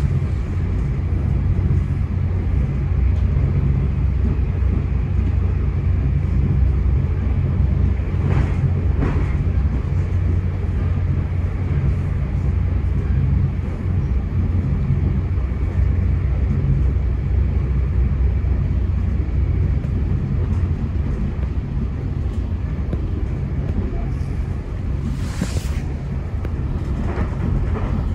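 Steady low rumble of a Caltrain bi-level passenger coach rolling along the rails at speed, heard from inside the car. A few brief rushing sounds cut through about eight seconds in and again near the end.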